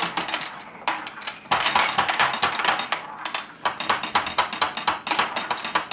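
Hungry Hungry Hippos game: the plastic hippo heads clack rapidly as the levers are pressed, with marbles rattling on the board. The clacking starts about a second in and pauses briefly a little past three seconds.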